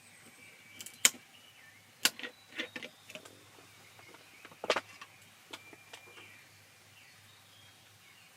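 A few sharp clicks and knocks of things being handled, the loudest about a second in and another pair near the middle, over faint bird chirps.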